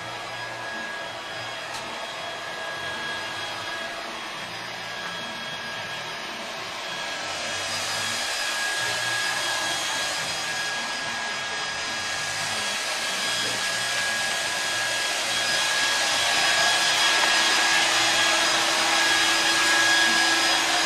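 Handheld hair dryer blowing steadily, a rushing whoosh with a thin constant whine, growing louder about a third of the way in and again near the end.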